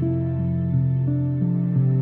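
Calm new-age style instrumental background music: held notes stepping to new pitches about three times a second.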